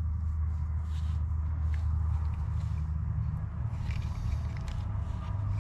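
A steady low hum throughout, with a few faint clicks and scrapes of hand tools and small parts being handled.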